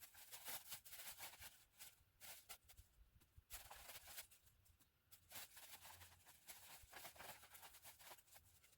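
Faint footsteps of a hiker walking on the trail, a soft rustling crunch with each step at a steady walking pace.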